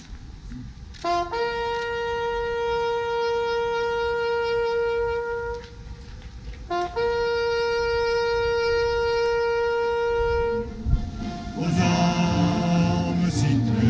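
A bugle call at a military remembrance ceremony: a short lower note leading into one long held note, played twice. Near the end, many voices start singing together.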